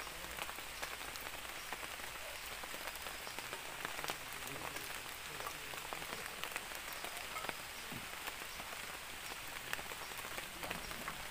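Heavy rain falling steadily on a shelter roof and the forest around it, with scattered individual drops ticking close by.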